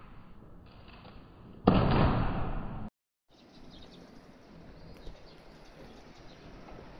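A sudden loud noise starts a little under two seconds in, runs for about a second and cuts off. After a brief dropout, quiet steady outdoor background noise follows.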